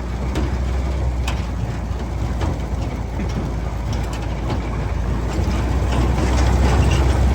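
A 1952 Willys M38A1 jeep's four-cylinder F-head engine running as the jeep drives along: a steady low rumble with scattered light rattles, building a little near the end.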